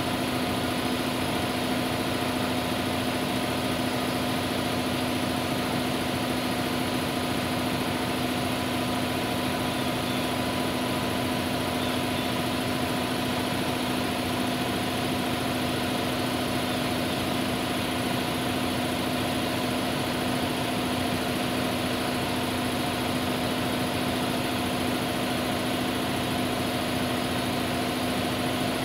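Steady machine hum at constant speed, with an unchanging low drone and a fainter higher tone.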